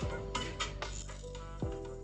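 Background music with a light beat: sustained notes, crisp clicking percussion, and a quick falling low note about a second and a half in.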